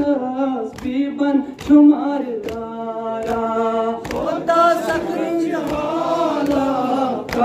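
Noha, a Shia mourning lament, chanted in long drawn-out phrases by a lead reciter into a microphone, with a group of male mourners' voices joining in. Short sharp strikes fall in a steady beat about every three-quarters of a second, fitting the mourners' chest-beating (matam).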